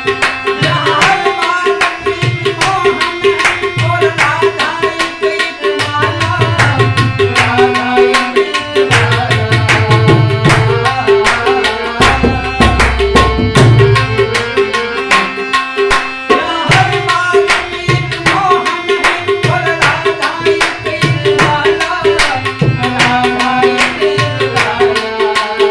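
Harmonium melody with tabla accompaniment in an instrumental passage of a devotional-style film song, the tabla keeping a steady rhythm with bass-drum strokes that bend in pitch.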